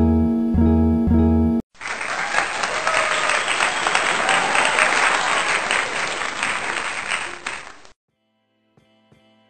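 Plucked guitar background music for about a second and a half, cut off abruptly. Then about six seconds of loud, dense, even noise with no clear pitch, which stops suddenly near the end.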